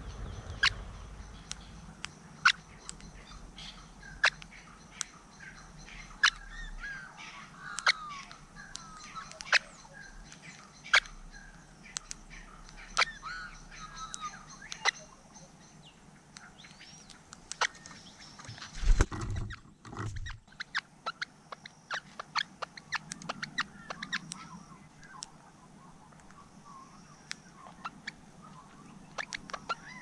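Crimson rosellas feeding at a plastic tub of seed: a run of sharp, separate clicks from beaks working the seed and tapping the tub, with soft chattering chirps in the first half. One loud thump comes about two-thirds of the way through.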